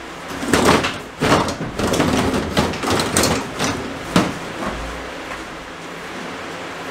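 Electrical cable being dragged out through holes in wooden wall studs: a run of irregular scraping and rustling pulls, with a sharp knock about four seconds in. The old wiring is coming out to be replaced.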